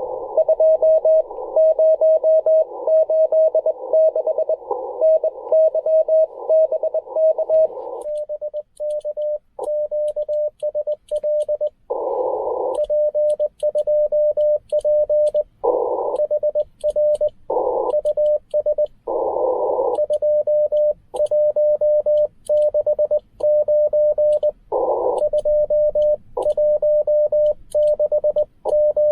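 Morse code from a Ten-Tec Argonaut V transceiver. For about the first eight seconds another station is heard keying through band hiss in the radio's narrow CW filter. Then the operator sends: a clean on-off sidetone with faint paddle clicks, and the receiver hiss coming back in some of the pauses between letters.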